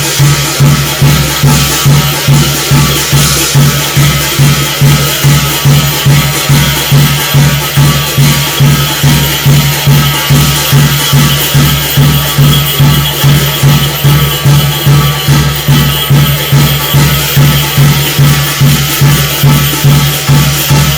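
Korean shamanic gut ritual music: a drum struck in a steady, even beat about twice a second, under a continuous high rattling, jangling wash of percussion.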